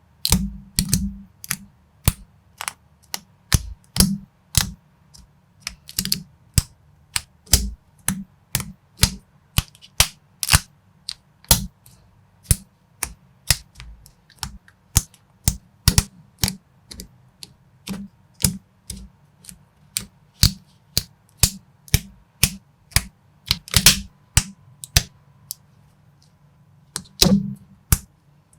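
Plastic building bricks clicking and snapping together by hand: a steady run of sharp clicks, about two or three a second, with a short pause near the end.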